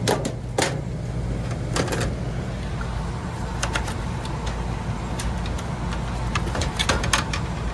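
Steady low machine hum from running HVAC equipment, with scattered clicks and taps as a humidifier part is handled and fitted.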